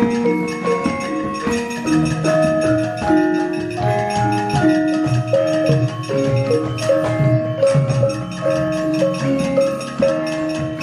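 Javanese gamelan music: mallet-struck metal keys and gongs ringing in a steady stream of notes.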